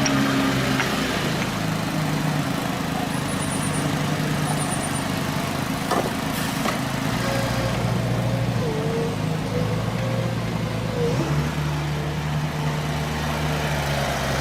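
Engine of a heavy machine running steadily, its low tone shifting abruptly twice, about seven and eleven seconds in.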